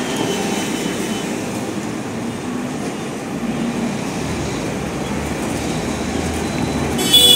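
Steady rumble of road traffic noise, with a sudden shrill high-pitched sound right at the end.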